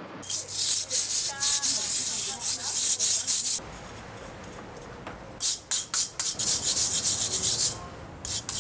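A trowel rubbed and scraped over set mosaic tiles in quick strokes, beating the tesserae flat into their bed. The strokes pause for about two seconds halfway through, then start again.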